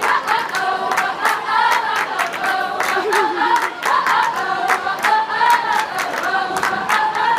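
A group of school students singing together in chorus, with hand claps keeping a steady beat.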